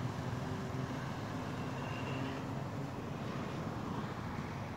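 Steady low hum of a motor vehicle engine running.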